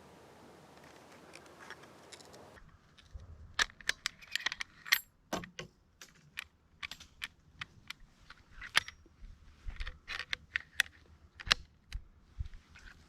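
Irregular sharp clicks and small rattles, close and clear, after a steady hiss that cuts off about two and a half seconds in.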